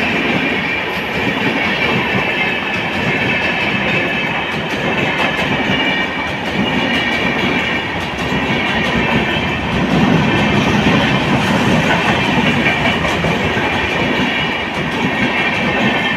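Express train passenger coaches running through a station at speed without stopping: a continuous rush of wheel and rail noise, growing slightly louder about ten seconds in.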